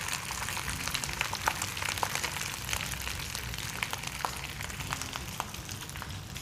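Cooked long-grain rice frying in hot oil in a wok: a steady sizzle with scattered small crackles and pops.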